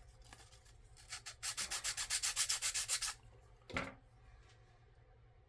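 Rapid back-and-forth scrubbing on small N scale locomotive parts as dirty surfaces are cleaned, a burst of quick even rubbing strokes lasting under two seconds. A single light knock follows near the end.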